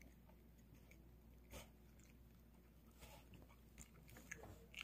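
A poodle eating pieces of meat from a plate: faint, scattered chewing and crunching clicks, the clearest about a second and a half in.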